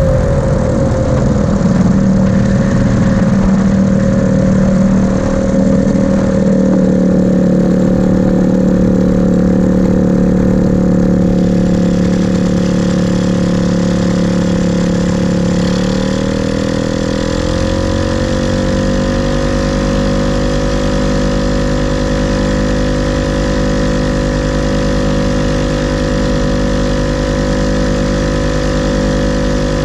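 Hirth F-23 two-stroke twin engine of a Quicksilver MX Sport ultralight running at low power while taxiing. About 16 seconds in its pitch falls as the throttle comes back, and it settles into a steady idle with an even pulse.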